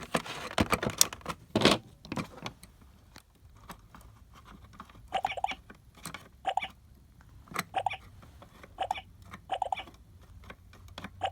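Fisher-Price Fun2Learn toy laptop's plastic keys clicking as they are pressed: a quick run of clicks first, then a series of short electronic beeps about once a second, one for each key press.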